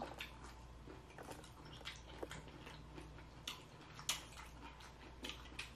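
Faint chewing, with scattered short wet mouth clicks at irregular moments, from someone eating pickled carrots.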